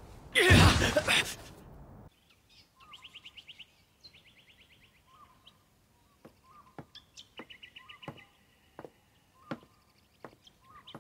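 A loud burst of noise for about the first two seconds, cut off abruptly. Then a quiet cartoon ambience of birds chirping in quick trills, with sharp taps of footsteps on wooden boards from about six seconds in.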